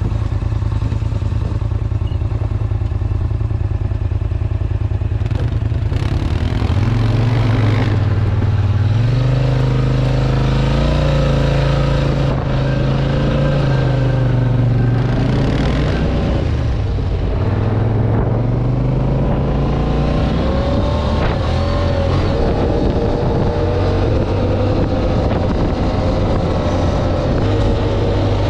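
Off-road vehicle engine running under load while driving, its pitch rising and falling with the throttle through the middle of the stretch, then running steadier near the end.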